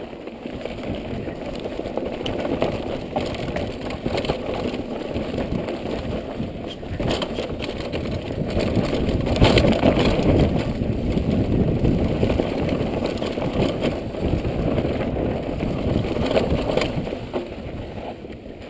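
Mountain bike riding fast down a loose, rocky dirt trail: a continuous rumble of tyres over dirt and stones with constant small rattles and knocks from the bike, loudest about halfway through.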